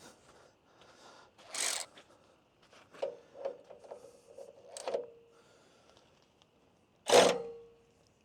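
Metal knocks and clinks while the sawmill bed is being adjusted to level. Several leave a short ringing note, and the loudest is a sharp clank about seven seconds in.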